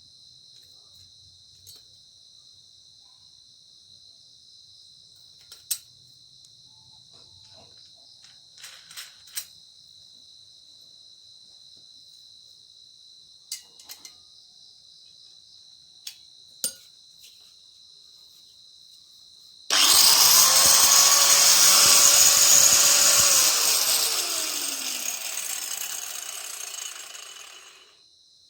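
Aegon AG100PA angle grinder switched on with a sudden start, running at a steady high-pitched whine for about four seconds, then switched off and winding down, its pitch falling over several seconds. Before it starts there is only a steady high-pitched background chirring with a few light clicks.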